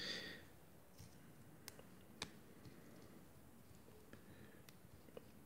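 Near silence with a few faint clicks of small plastic parts being handled as a moulded dress piece is fitted onto a small plastic Barbie figurine. The two sharpest clicks come about two seconds in.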